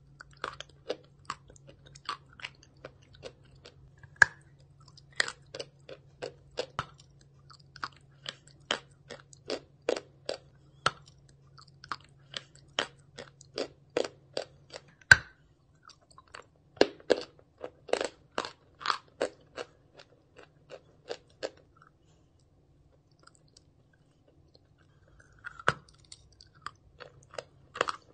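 A person chewing a big piece of chalk dipped in paste, close to the mouth: crisp crunches a few times a second, with one sharper bite-snap about fifteen seconds in. The chewing stops for a few seconds near the end, then the crunching starts again.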